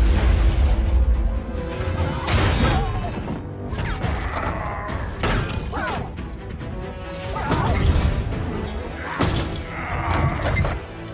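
Action-film soundtrack: orchestral score under a deep rumble, then a series of heavy metallic crashes and impacts from giant robots battling.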